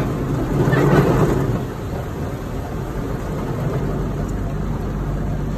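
Automatic drive-through car wash heard from inside the car's cabin: water spray beating on the glass and body, with the wash machinery running. It swells to its loudest about a second in, then carries on steadily.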